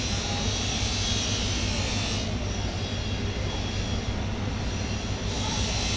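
Steady, loud low machinery drone, with a high hiss over it that cuts out about two seconds in and comes back near the end.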